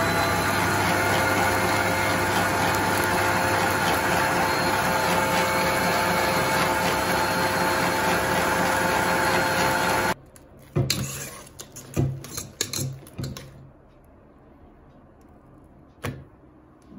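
Smeg planetary stand mixer motor running steadily at high speed with the whisk beating cream cheese and cream, switched off about ten seconds in. After it stops, a few short knocks and scrapes of the whisk against the steel bowl.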